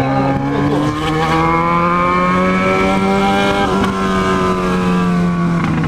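Yamaha XJ6 inline-four motorcycle engine under the rider, pulling up in revs over the first couple of seconds, then holding steady and easing off slightly near the end.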